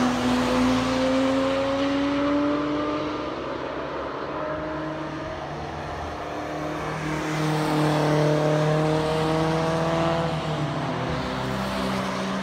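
Cars on a race track: a yellow Porsche 911 GT3's flat-six rising in revs as it accelerates away and fades. About seven seconds in, another car's engine climbs through the revs as it comes closer.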